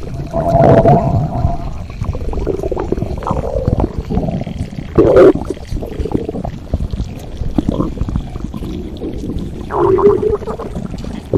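A person's stomach growling: an irregular run of gurgles and rumbles with drawn-out pitched growls near the start and about ten seconds in, and a loud gurgle about five seconds in.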